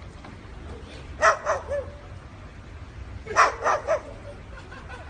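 A dog giving short, yelping barks in two quick bursts of two or three, about a second in and again about three and a half seconds in.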